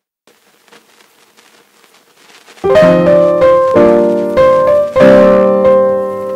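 Background piano music: faint at first, then loud sustained piano chords struck about a second apart from about two and a half seconds in.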